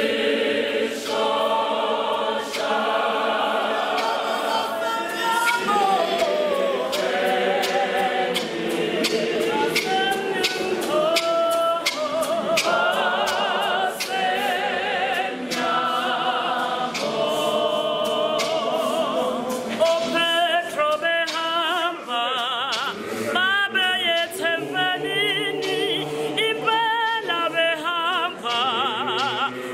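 Large mixed choir of men and women singing together in harmony, unaccompanied. From about twenty seconds in, a high voice with a wide vibrato stands out above the choir.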